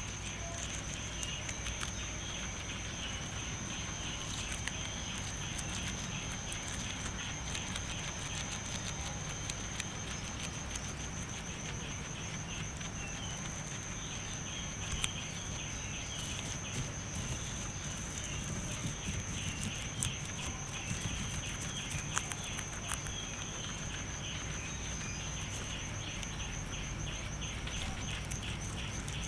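Guinea pig chewing fresh green grass, a quick run of small crisp crunching clicks. A steady high-pitched whine runs behind it.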